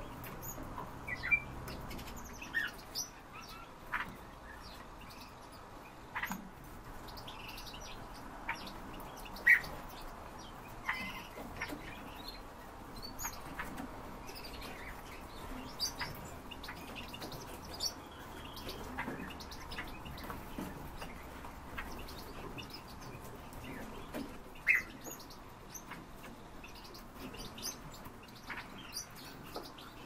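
Small cage birds in an aviary chirping and calling: short, separate chirps at irregular intervals, a few of them sharp and loud.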